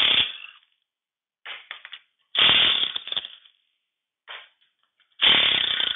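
Cordless impact wrench hammering as it loosens the bolts on the cast-iron pan of a tractor final drive. It comes in three bursts of about a second each, near the start, midway and near the end, with short blips between.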